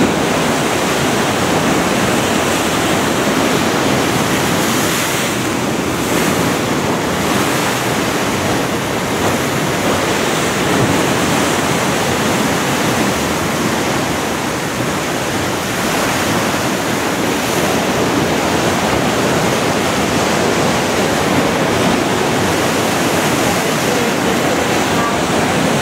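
Rough sea waves surging and breaking against a concrete seawall, a continuous loud wash of surf.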